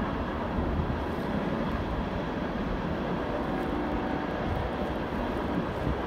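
Freight cars of a manifest train rolling past: a steady rumble of steel wheels on the rails, with faint held tones for a moment about halfway through.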